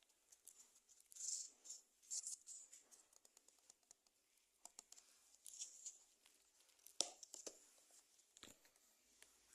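Faint, intermittent rustling and crinkling of parcel packaging being handled and torn open, with a sharp click about seven seconds in.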